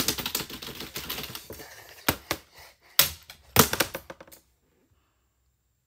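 A rapid, irregular clatter of clicks and knocks on a hard surface, with a few louder knocks near the end. It cuts off suddenly about four and a half seconds in.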